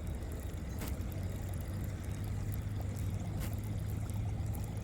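Topwater plopper lure being reeled in fast, churning and plopping faintly across the water, over a steady low rumble, with a few sharp clicks.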